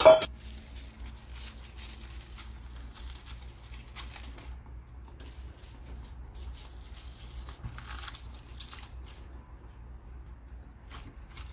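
A sharp metallic clink against the stainless-steel pot right at the start, ringing briefly, followed by soft rustling and crinkling as napa cabbage leaves are handled and dropped into the pot.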